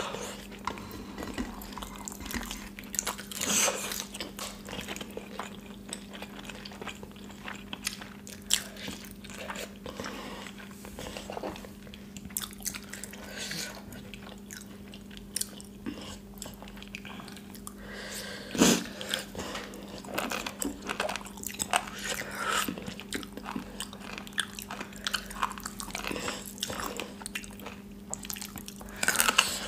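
Close-up eating sounds: chewing and biting a meal of rice with kadhi and fried potato, with soft crunches and scattered small clicks and wet sounds of fingers working the food on the plates. A steady low hum runs underneath.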